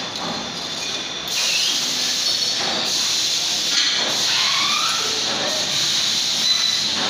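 Steady hissing noise of factory machinery at a shock-absorber assembly station, growing louder about a second in.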